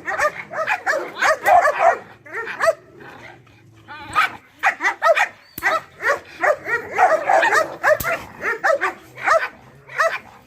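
Dog barking repeatedly in quick, loud volleys, with a brief lull about three seconds in.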